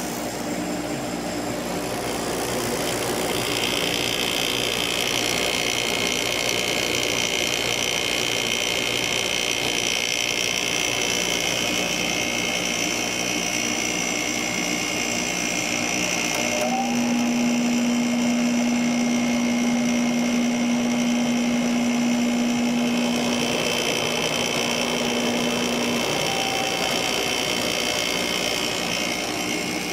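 Sharp 8500 BTU window air conditioner running, a steady fan whir with a hum and a high whine. A stronger steady low hum joins a little past halfway and stops several seconds later.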